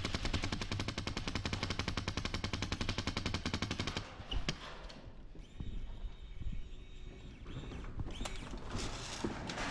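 Airsoft gun firing a long full-auto burst of rapid, even shots, about fifteen a second, stopping about four seconds in; after that only faint, scattered single shots.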